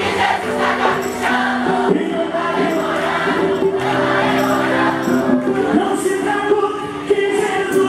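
Live gospel band music with many voices singing; long held notes sound over a bass line and a steady percussive beat, from a band with accordion, keyboards and bass guitar.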